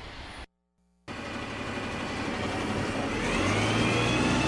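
Street sound with a motor vehicle running, after a brief gap of silence about half a second in; the engine note climbs and grows louder from about three seconds in.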